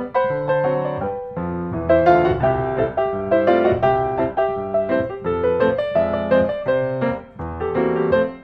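Background piano music, notes struck one after another and fading.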